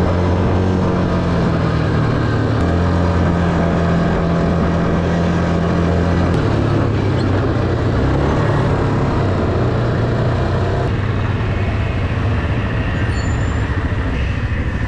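ATV engine running steadily on a trail ride, its note shifting down about six seconds in.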